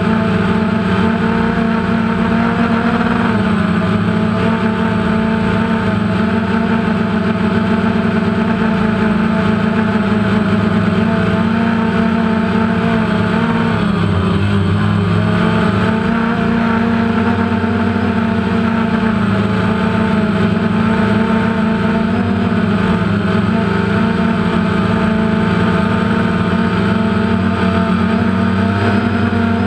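DJI Phantom quadcopter's electric motors and propellers running steadily in flight, heard close up from the GoPro mounted on it: a loud, steady buzz whose pitch shifts a little about halfway through as the drone manoeuvres.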